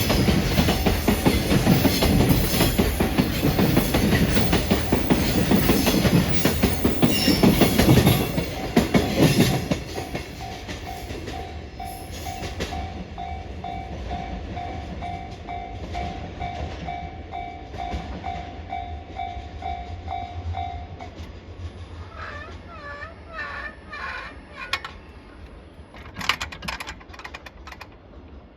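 A freight train rolling through a level crossing, its wheels clattering over the rail joints, until it clears about ten seconds in. The crossing's warning bell then keeps ringing in steady, evenly spaced pulses and stops a little past two-thirds of the way through, the sign that the barrier is about to lift.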